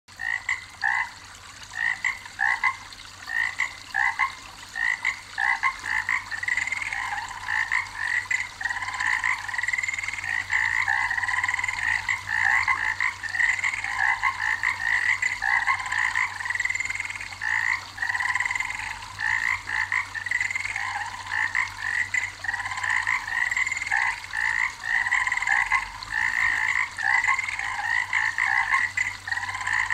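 Chorus of common frogs croaking at spawning time: many short calls repeating and overlapping, at first spaced out and then thickening into a near-continuous chorus after about six seconds.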